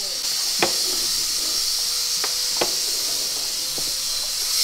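Steady high hiss with a few sharp knocks scattered through it, four in all.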